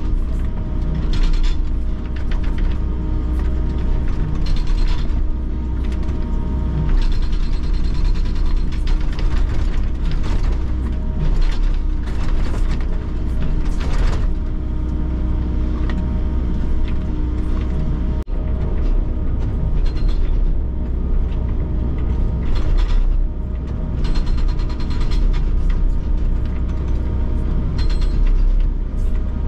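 Hydraulic breaker on a Volvo excavator hammering broken concrete piles, a rapid, continuous run of blows over the excavator's steady engine drone, heard from inside the cab.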